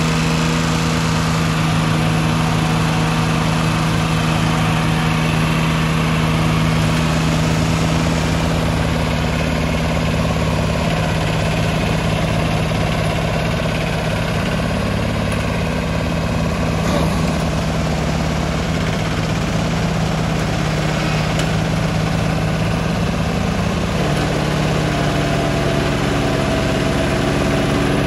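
Diesel engines of two mini tractors, an Escort Steeltrac and a VST Shakti VT 224, running steadily under load as they pull against each other on a chain in a tug-of-war. Near the end the engine note drops slightly and changes.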